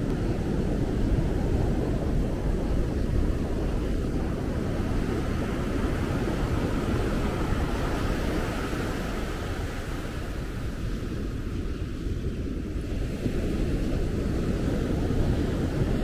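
Steady low rush of ocean surf mixed with wind buffeting the microphone, with no distinct events.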